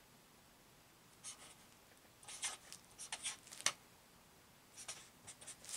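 Large-tip UV invisible-ink marker writing a message: faint scratchy pen strokes, one about a second in, a quick run of them between two and four seconds in, and a few more near the end.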